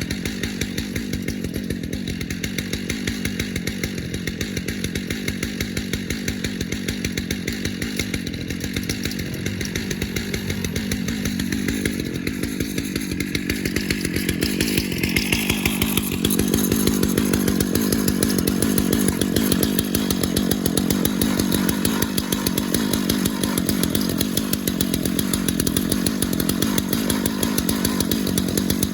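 Chainsaw mounted in a Granberg Alaskan mill running at high speed, ripping a log lengthwise into boards. It runs steadily, rises in pitch about halfway through and gets a little louder from there on.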